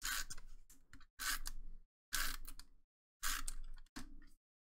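Tombow MONO permanent adhesive tape runner drawn across the back of a cardstock die-cut, about five short scratchy strokes roughly a second apart.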